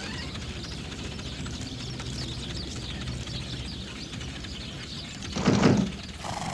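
Birds chirping over a steady low background noise, with a brief louder sound about five and a half seconds in.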